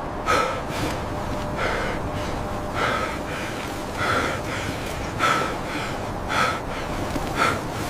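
Men breathing hard and gasping with effort, about one heavy breath a second, as they strain to push a heavy load.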